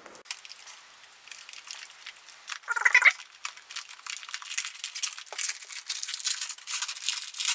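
Thin plastic bag crinkling and rustling as a car stereo head unit is pulled out of it, with a brief squeak about three seconds in.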